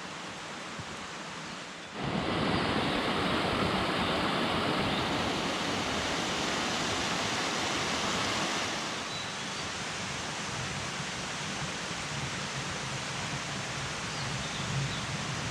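Gorge stream running: a steady rush of water that gets louder about two seconds in and eases a little about nine seconds in.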